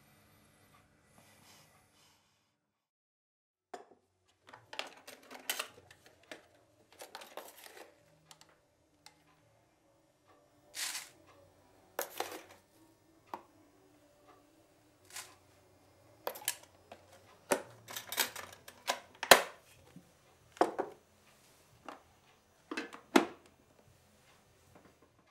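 Irregular clicks, knocks and short clatters of small objects being handled on a kitchen counter, with brief rustles between them. They begin a few seconds in and grow louder and closer together later, the loudest knock coming near the end.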